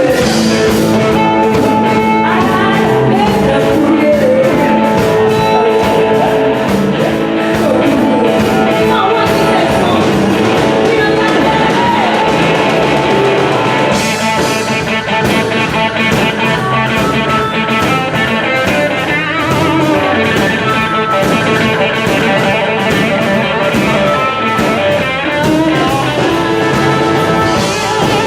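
Blues-rock band playing a boogie live: electric guitar and drums, with singing. The cymbals get brighter about halfway through.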